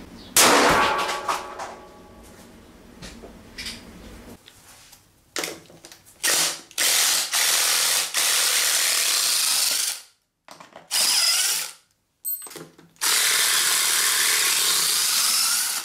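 A sharp bang with a ringing tail about half a second in. Then a cordless drill backs screws out of a layered plywood and paneling test panel, running in about six separate runs of up to three seconds each.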